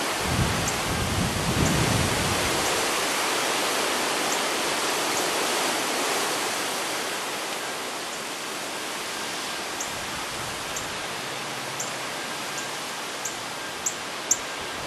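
Steady outdoor hiss of wind, with low buffeting on the microphone in the first few seconds. Faint, short, high chirps come at intervals, more often near the end.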